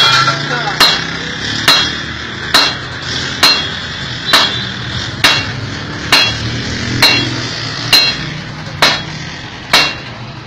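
Hammer blows on red-hot iron on an anvil, struck at an even pace a little more than once a second, each blow sharp and briefly ringing. A steady low hum runs underneath.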